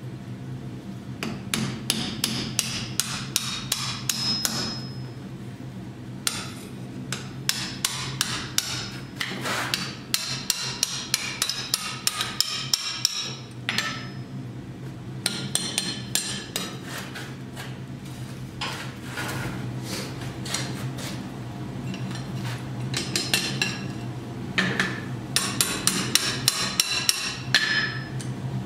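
Hand hammer striking iron on an anvil in runs of quick blows, about three a second, some ringing briefly, with pauses of a few seconds between runs. A steady low hum runs underneath.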